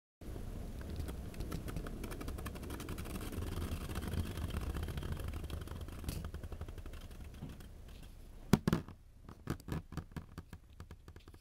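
Duo Ice Titan 230WD Beyblade spinning on its WD tip in a plastic Beystadium: a steady whirring scrape with fine ticking that slowly fades as the top loses spin. Late on it wobbles out and falls, with one sharp knock and a few smaller clattering knocks as it comes to rest.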